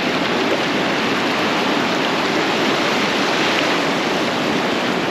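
Ocean surf washing up the beach: a steady rush of breaking waves and foam.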